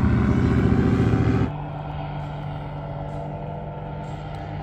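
A powered paraglider's propeller motor running steadily, cutting off abruptly about a second and a half in. A quieter steady low hum follows.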